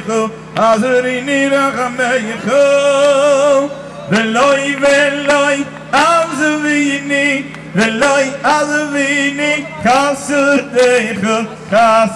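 A man's amplified voice singing a Jewish melody in long, ornamented phrases with heavy vibrato, over a steady held accompaniment note.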